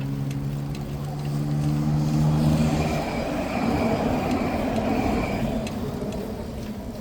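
A motor vehicle passing close by: a steady engine hum that gives way about three seconds in to a swell of road noise, which then fades away.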